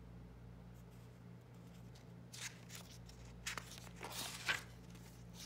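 Faint paper rustle of a picture book's page being turned by hand, a few soft swishes in the second half, over a low steady hum.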